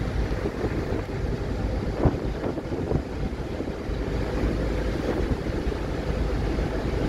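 Wind buffeting the microphone over the low rumble and water wash of a car ferry underway, with a few sharper gusts about two to three seconds in.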